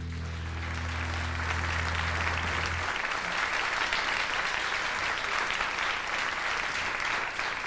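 Audience applauding at the end of a live song. Under the start of the applause, the band's last low note rings on and stops about three seconds in.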